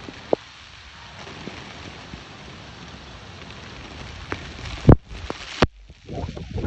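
Steady heavy rain hissing on a flooded street. Near the end come a few sharp knocks, the loudest about five seconds in, and then rougher, gusty noise.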